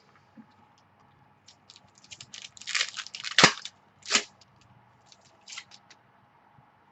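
Trading-card packaging and cards being handled by hand: a run of short crinkles and snaps, with one sharp crack about three and a half seconds in and another just after four seconds.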